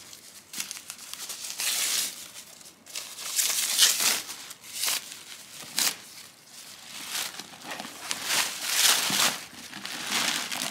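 White packing wrap rustling and crinkling in irregular bursts as it is pulled and peeled off the handles of a bag.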